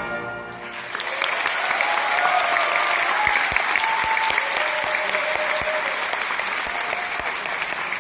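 The last chord of a piano and string ensemble dies away, and about a second in a concert audience breaks into loud, sustained applause.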